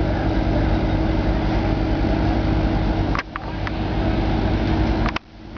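An engine running steadily at idle, a constant low drone with a steady hum. Two short clicks come about three and five seconds in, each followed by a sudden drop in the sound that swells back over about a second.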